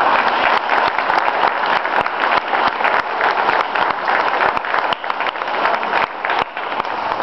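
A group of people clapping and applauding, dense and steady, thinning out near the end.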